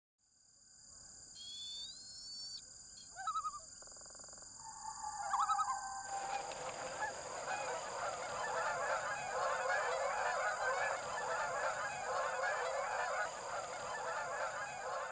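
A few separate bird calls, among them a short rising whistle, then from about six seconds in a dense flock of birds calling all at once. A steady high-pitched tone runs above it, and the whole fades in at the start.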